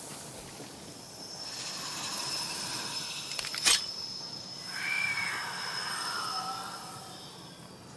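Eerie horror-film sound design: a steady low hiss with a high sustained tone. A single sharp click comes a little before halfway, followed by a wavering whine that rises and falls.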